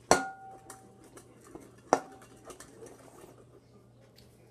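A spoon striking the side of a bowl twice, about two seconds apart, the first knock ringing briefly, with light scraping and tapping between, while soap, water and sugar are stirred into slime.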